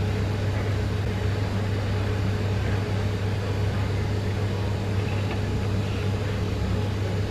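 A steady low machine hum with an even background rush, unchanging throughout.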